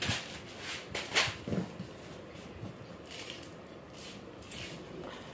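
Handling noises of a box of fishing reels being unpacked: a couple of sharp clicks and knocks near the start and about a second in, then a few faint rustles.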